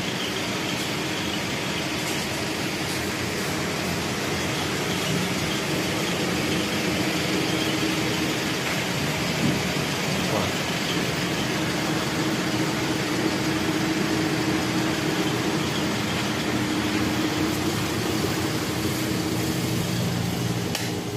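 Steady ambient background noise of a busy shopping area: a constant hum and hiss with a faint low drone.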